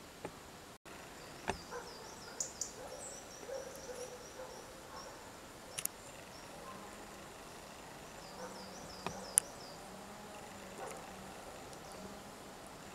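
Great spotted woodpecker on a dead pine snag giving a few sharp, isolated taps, the loudest about nine seconds in. Under them, in faint outdoor quiet, a small bird twice gives a quick run of thin, high, wavering notes.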